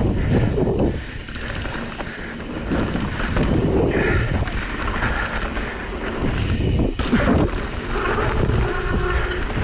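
Wind buffeting the microphone over the uneven rumble and rattle of riding fast down a rough trail.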